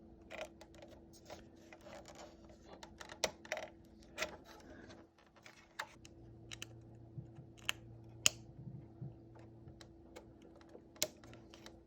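Scattered faint clicks and taps of small plastic parts being handled as ribbon cables are pushed into their connector slots on a car radio's circuit board. A faint steady hum runs underneath.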